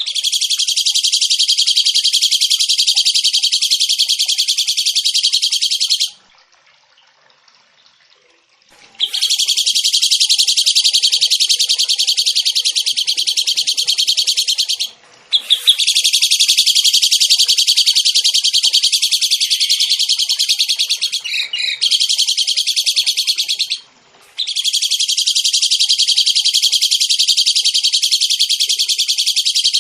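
Small songbird singing long, very rapid, high-pitched trills, in stretches of several seconds separated by short pauses, from a masteran recording of the kind used to tutor cage songbirds.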